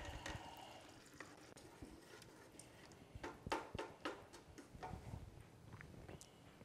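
Faint, scattered clicks and taps of a wooden spatula against a metal stockpot as crushed tomatoes are scraped in and stirred, with a cluster of sharper clicks about three to five seconds in.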